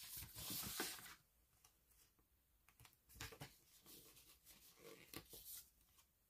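Faint rustling of a paper sticker sheet being handled, with a short crinkly rustle in the first second, then soft scattered rustles and small clicks later on.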